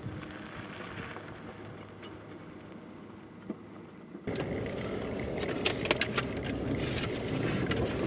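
A Ford pickup truck driving away on a dirt road, its engine and tyre noise faint and slowly fading, with some wind. About four seconds in there is a sudden change to inside a truck's cab on a rough dirt track: steady engine and road rumble with frequent clicks and rattles.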